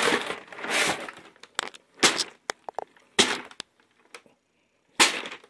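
Crumpled brown kraft paper rustling, then crackling and tearing in a series of sharp snaps as a tomahawk blade is hacked and drawn through it. The paper tears rather than slicing cleanly, which the owner takes to mean the edge may not be that sharp.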